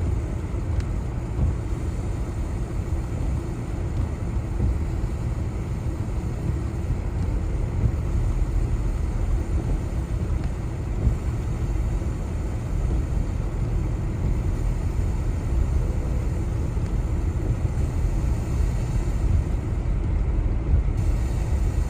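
Vehicle driving, a steady low rumble of engine and road noise.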